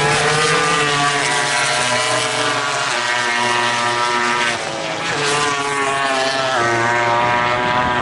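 MotoGP racing motorcycles' four-cylinder 1000 cc engines at high revs as they accelerate past. The pitch climbs, drops sharply about four and a half and six and a half seconds in, and climbs again, the sound of upshifts through the gears.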